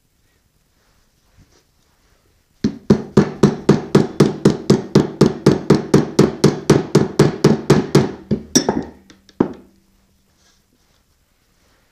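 A soft-faced mallet tapping rapidly and evenly on a South Bend 13-inch lathe's gear assembly, about five taps a second for some six seconds, with the gears ringing briefly at each tap as parts are driven back together. One more, separate blow comes about a second later.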